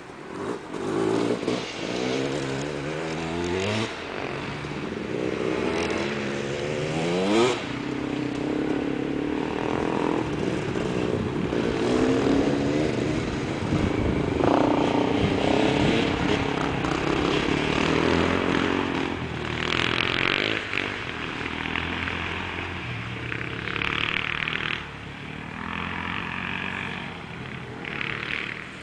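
Enduro motorcycle engines revving hard on the snow track, the pitch climbing and then dropping sharply as the rider shifts up, twice in the first seven seconds or so. After that the engines run at a steadier, fluctuating note as bikes ride past.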